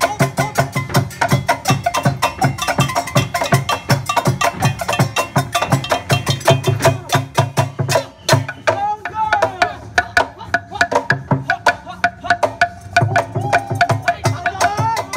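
Kitchen-percussion ensemble playing a fast, driving rhythm on steel pots, frying pans and plastic barrel drums, with deep drum thuds under the metal clangs. About two-thirds of the way in, and again near the end, the beating thins out and voices call out over it.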